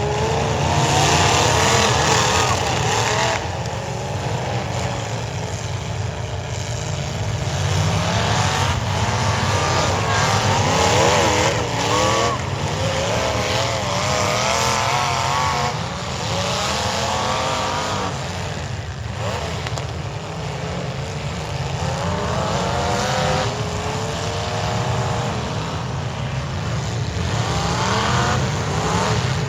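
Demolition derby cars' engines revving up and down, several at once, with the pitch rising and falling over and over.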